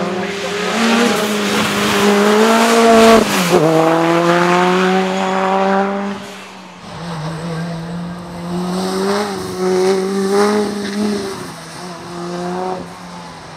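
Race car engine accelerating hard, its pitch climbing and dropping sharply at an upshift about three seconds in, then climbing again before fading away after about six seconds. A fainter engine note follows, rising and falling a few times.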